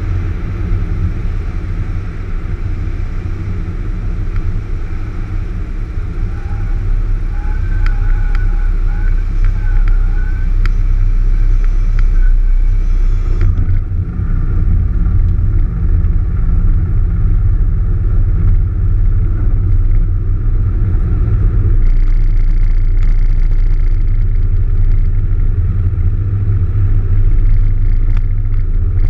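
Cessna 172 engine and propeller at low landing power, heard inside the cabin: a steady low rumble that grows louder about a quarter of the way in, as the plane flares and rolls out on the runway. A thin wavering tone sounds for a few seconds about a third of the way in.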